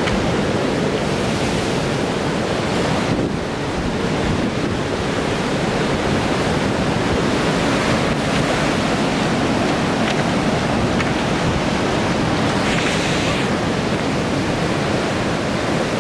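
Heavy surf breaking along a rocky shore, a loud steady rush of whitewater, with wind buffeting the microphone. The rush dips briefly a few seconds in and swells with a brighter hiss of spray about three quarters of the way through.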